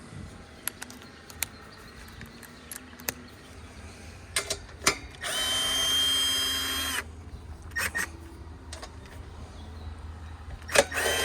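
Cordless power driver spinning off the mounting nuts of a condenser fan motor: a steady, high whine for a little under two seconds past the middle, with a second short run starting near the end. Light clicks and taps of tools and nuts come before it.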